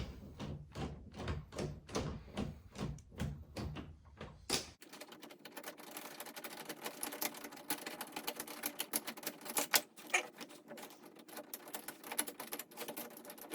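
Phillips screwdriver backing screws out of a door handle: a run of small metallic clicks and scrapes, spaced about two or three a second at first and coming thicker after about five seconds.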